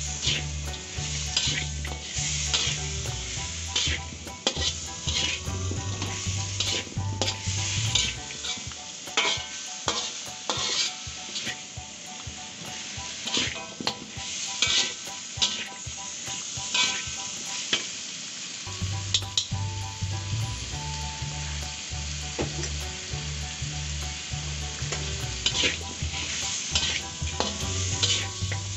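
Metal spatula stirring and scraping chicken pieces, potatoes and spices around a frying pan, with irregular scrapes and clacks over a steady sizzle of frying.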